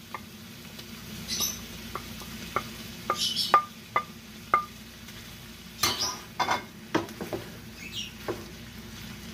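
Wooden spoon scraping chopped green onions off a plate into a stir-fry pan, with a run of light taps about twice a second, then louder knocks as the spoon stirs the vegetables in the pan. A faint sizzle of the food cooking on low heat runs underneath.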